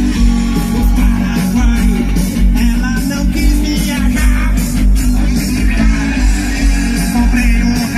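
Loud rock-and-roll music with electric guitar, bass and a singing voice.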